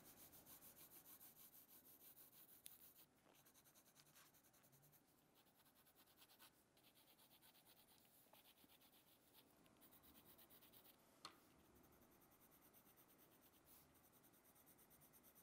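Faint scratching of a coloured pencil shading on paper in quick, even strokes, with a couple of soft clicks.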